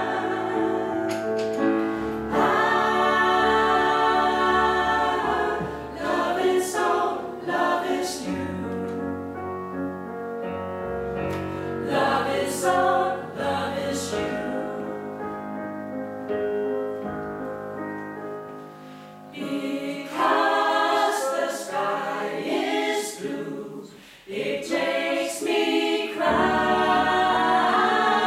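Small mixed vocal ensemble of men's and women's voices singing a song in close harmony, with a couple of short breaks between phrases in the second half.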